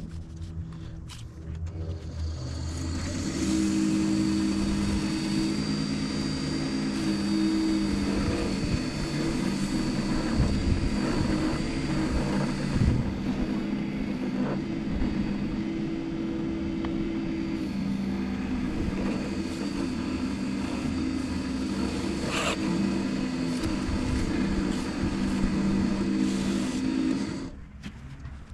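Benchtop wood lathe running with a steady motor hum and high whine while a shop towel rubs finish onto the spinning wooden vase. The lathe builds up to speed over the first few seconds and is shut off near the end.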